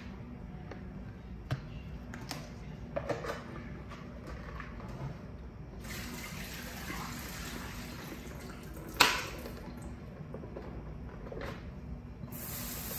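Water pouring and running into a kitchen sink as a container of soaking cut potatoes is drained and rinsed, with a few light clicks of plastic container and lid. One sharp knock about nine seconds in is the loudest sound.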